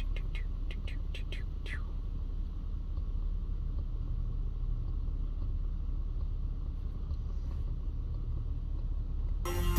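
Steady low rumble inside a 2013 Audi S5's cabin, with a quick run of about eight light clicks in the first two seconds. Music starts over the car's speakers just before the end.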